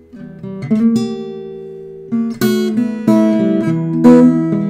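Acoustic guitar playing a slow blues: single plucked notes, then fuller strummed chords from about halfway.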